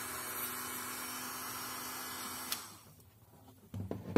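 Handheld electric rotary tool running with a polishing wheel against a brass lamp burner, a steady whine over noise, switched off with a click about two and a half seconds in and spinning down. A few knocks follow as the tool is handled on the bench, the loudest at the very end.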